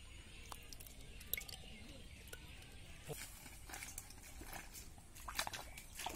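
Faint squelches and clicks of wet mud. They come sparsely at first, then more thickly from about three seconds in, with the loudest cluster near the end, like bare feet stepping and hands working in soft mud.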